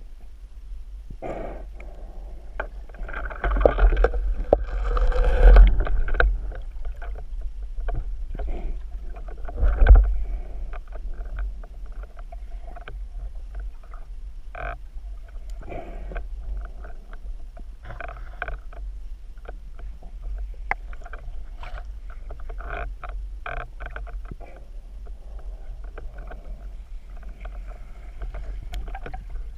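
Water sloshing and splashing with a steady deep rumble and many scattered clicks and knocks. A louder rush of splashing comes about three to six seconds in, and a heavy thump near ten seconds.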